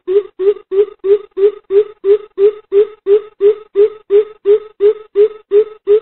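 Greater coucal calling: a long, even run of low hooting 'boop' notes, about three a second, each with a slight upward lift.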